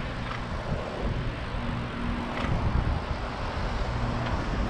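Steady rushing wind and tyre noise from a bicycle ride, picked up by a handheld GoPro. A faint low engine hum from road traffic comes and goes twice.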